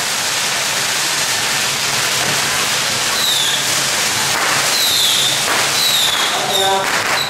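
A string of firecrackers going off in a dense, continuous crackle, loud throughout. Several short, high, falling whistles cut through it from about three seconds in.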